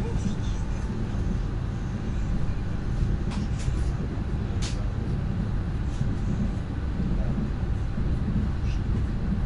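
Steady low rumble of a Lastochka ES1P electric train's running gear on the rails, heard from inside the carriage while under way, with a few short clicks a little before the middle.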